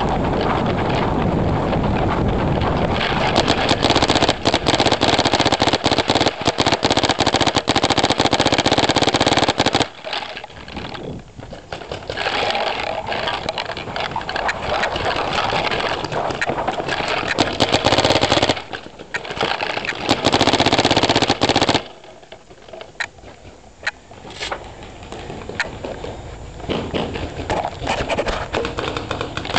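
Paintball game sounds picked up by a camera taped under a marker's hopper: loud rattling and rumbling handling noise as the player moves, with many sharp cracks of paintball markers firing. The loud stretches cut off abruptly about ten and twenty-two seconds in, leaving quieter spells with scattered shots.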